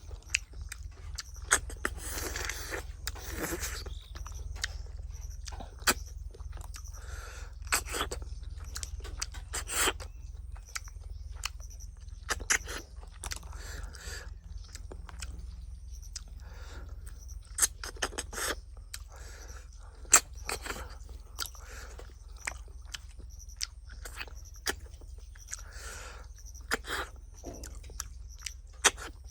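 A person eating close to the microphone: irregular chewing and crunching, with scattered sharp clicks and scrapes.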